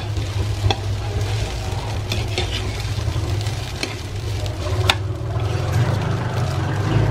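Spatula stirring and scraping rice in a hot frying pan, mixing it with oyster sauce, with a soft sizzle and a few sharp taps of the spatula on the pan, the loudest about five seconds in. A steady low hum runs underneath.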